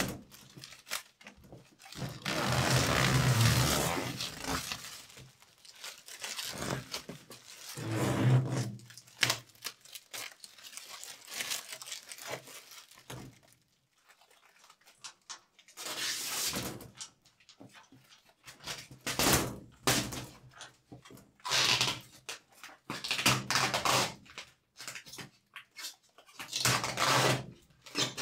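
Plastic sheeting and protective film being pulled and peeled off acrylic panels: rustling, crinkling and tearing in irregular bursts, with a brief lull about halfway through.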